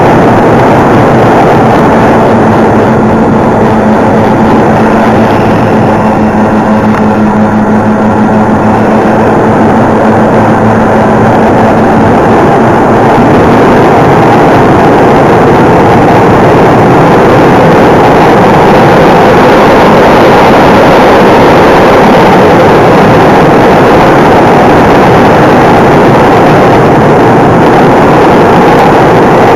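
Wind rush and the hum of a Parkzone Mosquito RC model's twin electric motors and propellers, picked up by a camera inside the model's cockpit in flight: loud and steady, with a droning tone through roughly the first half that then fades into the rush.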